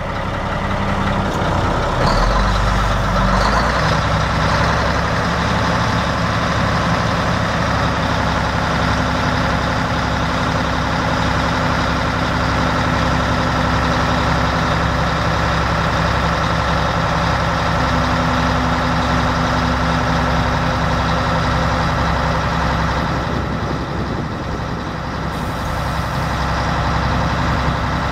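Mack 350 diesel engine of a 1983 Mack RD686S dump truck running steadily while its three-stage hoist raises the dump bed.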